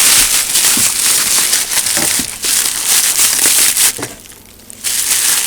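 Plastic packaging and bubble wrap crinkling as it is handled and pulled away, with a short pause about four seconds in.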